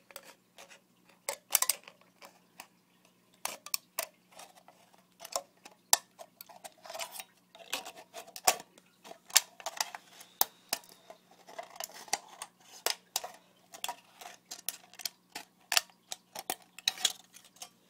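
Scissors cutting through a thin aluminium drink can: an irregular run of sharp, crisp snips and clicks, several a second, with a faint steady hum underneath.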